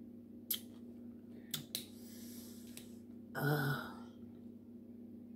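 Mouth sounds of eating with the fingers: a few sharp lip smacks, then a short wet slurp about three and a half seconds in, over a steady low hum.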